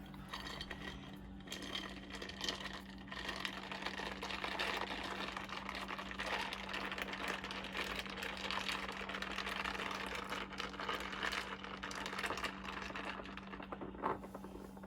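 A straw stirring whipped coffee into an iced drink in a glass, the ice cubes rattling and clicking rapidly and continuously; it stops about a second before the end.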